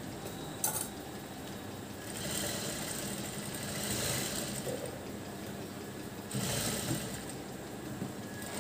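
Industrial single-needle sewing machine stitching layers of silk fabric, running in two stretches, the second one short, with a sharp click just under a second in.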